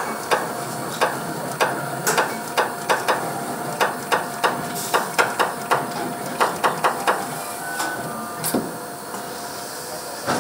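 Automatic VIN marking machine punching the vehicle identification number into a car body's sheet-metal floor pan. It makes a quick, irregular series of sharp metallic taps, one character after another, and stops about eight and a half seconds in, leaving a faint steady hum.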